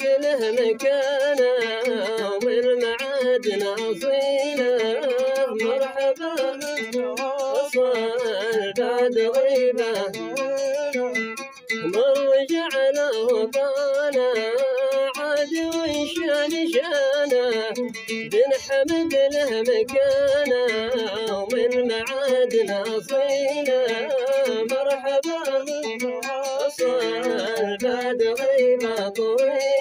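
A man singing a Hadrami Mashqasi-style sawt song with a wavering, ornamented line, over plucked-string accompaniment.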